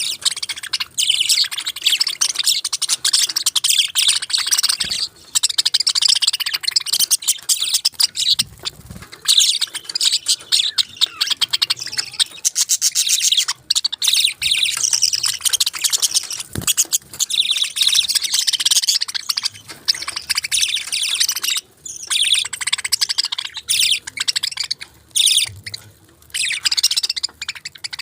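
Pet parakeets chirping in a dense, rapid, high-pitched chatter, with a few brief pauses.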